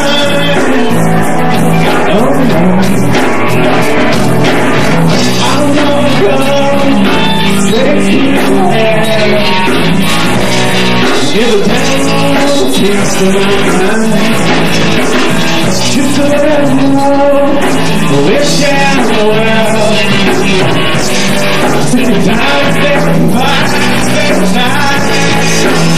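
Rock band playing live: guitars, bass and drums, with a man singing lead.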